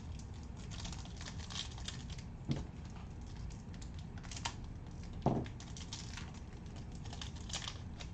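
Foil wrapper of a 2004 Upper Deck Legends Timeless Teams trading-card pack crinkling as it is torn open and handled by hand, with light crackles throughout and two soft knocks about two and a half and five seconds in.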